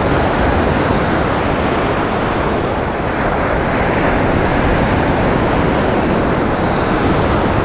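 Pacific Ocean surf breaking and washing up the shore: a steady, loud rush of waves.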